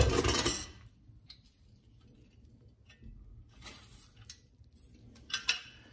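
A knock right at the start, then faint scattered clicks and light taps as a metal bracket is handled and moved on a wooden workbench, with a few quick clicks near the end.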